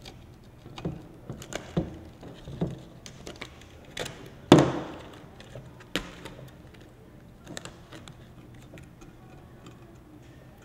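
Griptape being cut and handled with a utility knife: scattered short scrapes and clicks of the blade and the gritty sheet, with one louder thump about four and a half seconds in.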